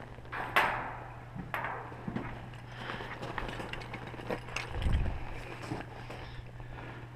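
Handling of rope and gear on gravel: scattered clicks, rustles and knocks, with a dull thump about five seconds in, over a steady low hum.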